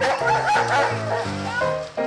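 Background music with held notes, over which a German Shepherd barks excitedly.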